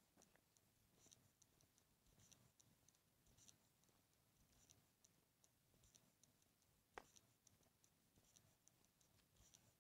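Near silence, with faint high ticks repeating about once every second and a slightly stronger click about seven seconds in.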